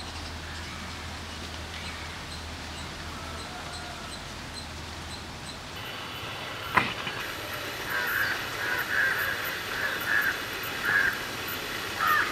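Outdoor ambience with crows cawing repeatedly from about eight seconds in. A single sharp knock comes shortly before the calls, and a faint steady low hum runs through the first half.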